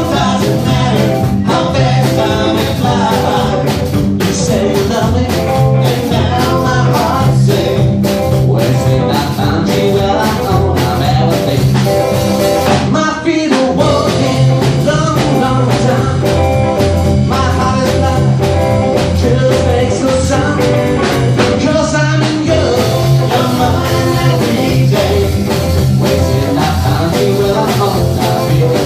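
Rockabilly trio playing: guitar, upright double bass and drum kit, with a man singing. The music drops out briefly about thirteen seconds in.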